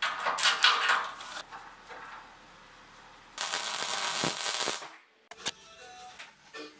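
Arc welding on steel: the arc crackles steadily for about a second and a half from about halfway in. It follows a loud crackling burst at the start, and a few sharp clicks come near the end.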